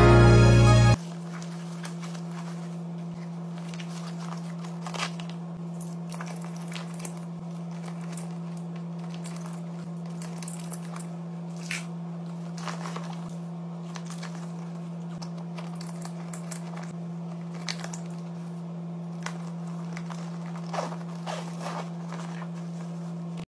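Soft rustling and light clicks and knocks as items are handled and packed into a fabric backpack, over a steady low hum.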